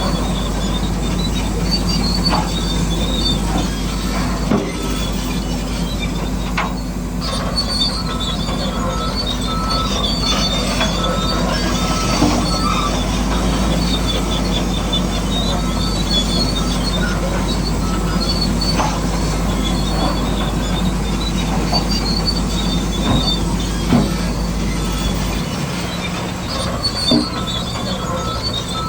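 Radio-controlled model construction machines running: electric motors and gearboxes whining steadily, with high squeaks and scattered clicks. A low steady hum cuts out near the end.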